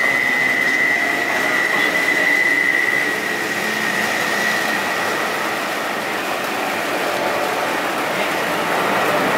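Nepal Airlines Airbus A330's twin Rolls-Royce Trent 700 turbofans at takeoff thrust as it rolls, lifts off and climbs: a loud, steady jet roar with a high fan whine that fades out about three to four seconds in.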